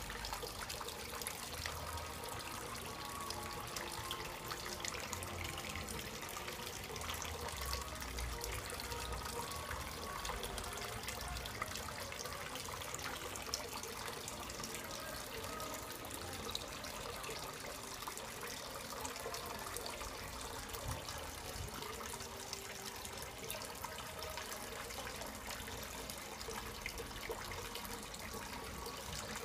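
A steady trickle of water falling from a pipe outlet onto the surface of a small tub pond, splashing and bubbling.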